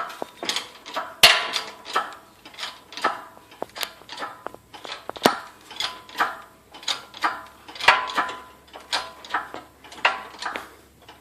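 Hydraulic engine hoist being pumped by hand to lift an engine and its cradle: a steady run of metallic clanks, about two a second, each with a short ring.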